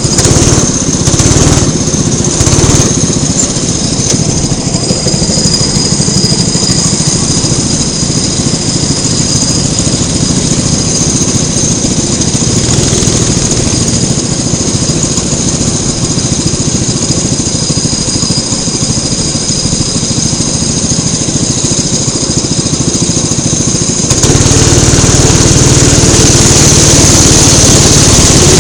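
Go-kart engine running steadily, close to the microphone, then growing louder near the end as it picks up speed.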